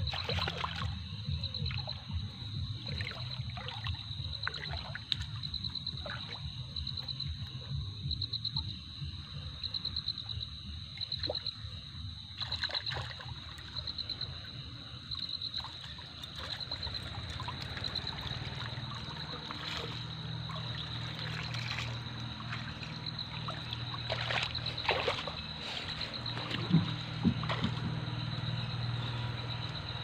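Water splashing and dripping as a wet cast net is hauled up out of shallow river water, in a string of short splashes, over a steady high-pitched pulsing chirp.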